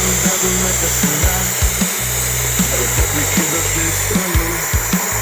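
Music with a steady beat, over a continuous rushing hiss like an oxygen lance jet burning through steel.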